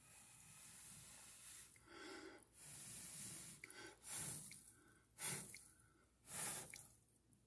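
A person blowing a series of breath puffs onto the glowing embers of a nearly dead wood-stove fire to revive it. There are about five separate puffs, and the last few are the strongest.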